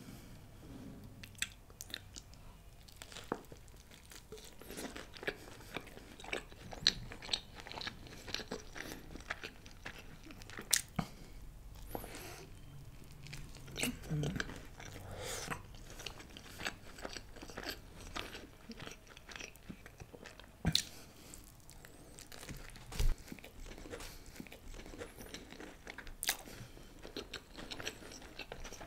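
Close-miked chewing and biting of a bread slice topped with chicken biryani, gravy and boondi raita: irregular soft, wet clicks and crunches, with a few sharper crunches scattered through.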